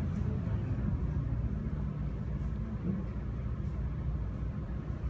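Steady low background rumble with a faint haze of noise above it, without a clear pitch or rhythm.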